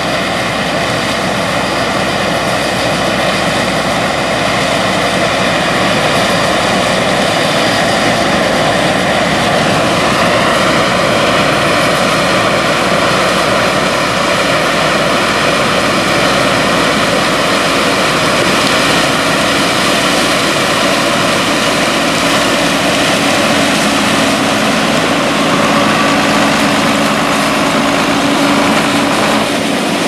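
A John Deere 9600 combine harvesting corn and augering grain into a Brent 620 grain cart, with a John Deere 4640 tractor pulling the cart alongside: a loud, steady drone of diesel engines and harvesting machinery with several held tones.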